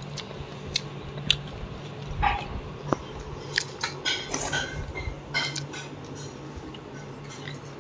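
Scattered clinks and taps of steel plates and bowls as people eat a meal by hand, over a steady low hum.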